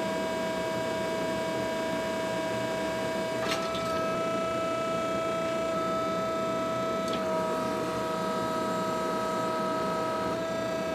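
Steady machine hum in a blacksmith shop: a noisy drone with several high, steady whining tones. The tone mix shifts slightly with a faint click twice, about 3.5 and 7 seconds in.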